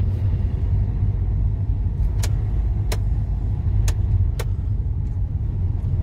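Steady low rumble of a car driving, its engine and tyres heard from inside the cabin, with four short sharp clicks in the middle.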